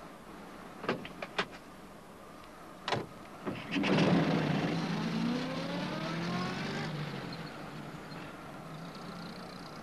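A few light clicks and a door thump, then a small post van's engine starting and pulling away, its pitch rising as it speeds up, then fading.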